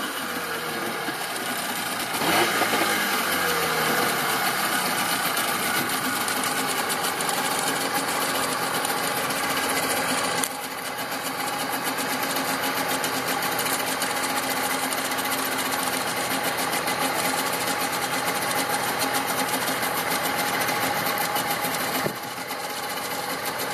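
Suzuki DT15 two-stroke outboard motor running steadily with its leg in a test barrel of water. It gets louder about two seconds in, then steps down a little about ten seconds in and again near the end.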